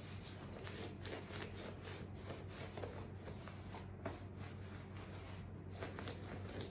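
Hands rubbing and squeezing the sleeves of a soaked sweatshirt: an irregular, scratchy rustle of wet fabric, over a steady low hum.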